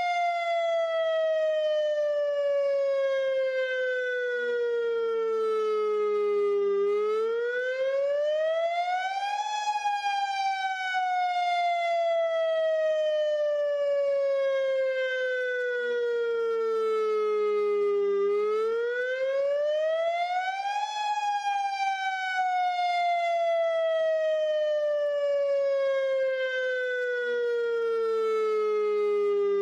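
Federal Signal Modulator electronic tornado siren sounding a wail on test. Its tone climbs quickly for about three seconds, then slides slowly down for about nine, over and over.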